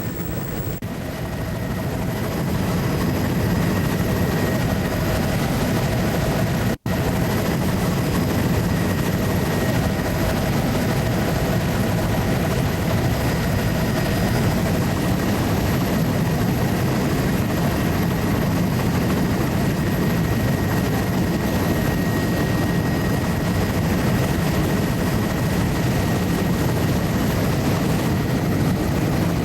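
Steady engine and airframe noise of a survey aircraft in level cruise, heard from inside the cabin, with one very short dropout about seven seconds in.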